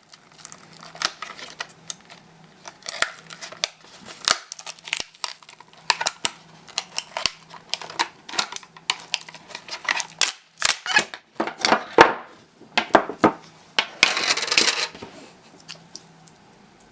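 A laptop battery pack being taken apart by hand: irregular clicks and clacks of its hard plastic casing and 18650 cells, with a short scraping rasp near the end.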